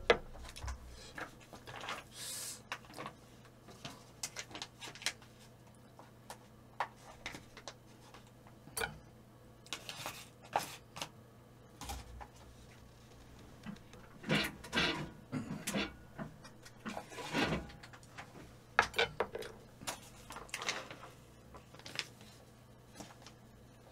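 Eating at a table: irregular soft clicks and brief clatter of utensils against bowls, with chewing, over a faint steady low hum.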